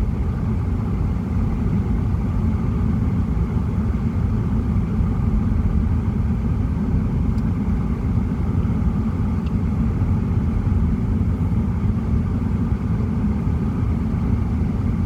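Car driving at road speed, heard from inside the cabin: a steady low rumble of engine and tyres.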